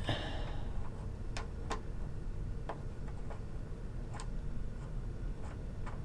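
Scattered light plastic clicks, about six at uneven intervals, as the Wyze Lock's green adapter is twisted back and forth by hand. The adapter is a loose, sloppy fit that turns a long way before it engages.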